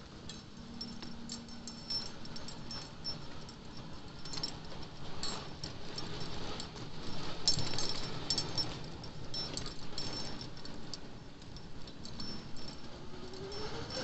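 Motorbike riding slowly, its engine running low under road and wind noise with light rattling clicks; near the end the engine's pitch rises as it speeds up.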